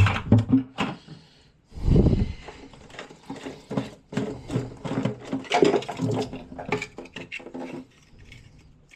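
Hand-tool work on a boiler's gas valve connection: irregular metal clanks, clicks and scrapes of a wrench and fittings being handled, with a heavy thump about two seconds in.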